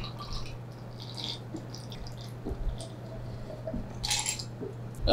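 A man gulping down a glass of beer in one go, with soft swallows and sips spaced through the drink.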